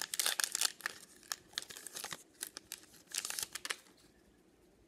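Wrapper of a Heritage High Number baseball card pack being torn open and crinkled by hand: bursts of crackling, loudest in the first second and again about three seconds in, dying away about four seconds in.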